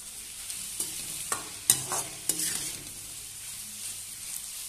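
Steel ladle scraping and clinking against a steel kadai as diced pumpkin frying in oil is stirred to mix in salt, over a steady sizzle. The stirring strokes stop about three seconds in, leaving the pumpkin sizzling alone.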